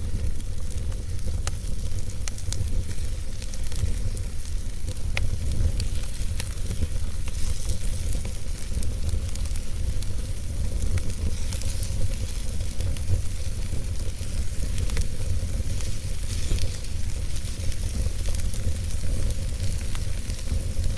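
Wood fire burning in a fireplace, crackling with scattered sharp pops over a steady hiss and a low rumble.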